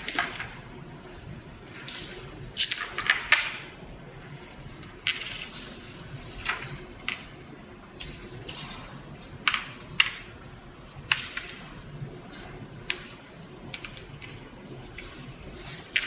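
Small metal connector parts clicking and clinking as they are slid off a fiber-optic cable and set down on a workbench: about a dozen irregular sharp clicks.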